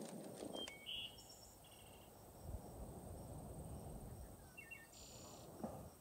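Quiet rural outdoor ambience: a wood fire crackles with a few sharp pops in the first second, then a few short bird chirps sound over a faint, steady, high insect trill.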